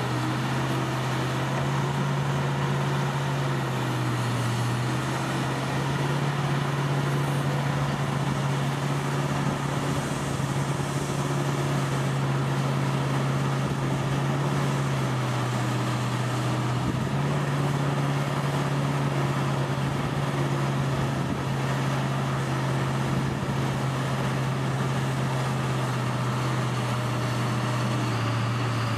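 Hymac 880 tracked hydraulic excavator's diesel engine running steadily while digging, its note dropping slightly and recovering a few times as the load changes.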